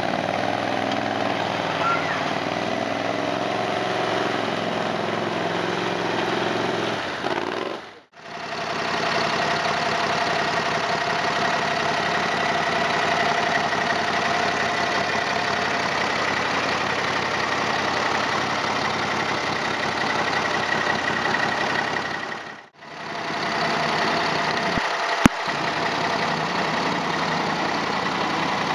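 Small engines of 6x6 amphibious ATVs running steadily as the machines work through swamp mud and river water. The sound drops out briefly twice, about 8 and 23 seconds in, and there is a sharp click a little after the second dropout.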